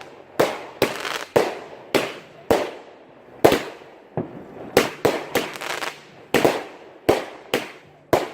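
Fireworks going off in a rapid run of sharp bangs, about two a second, each with a short echoing tail.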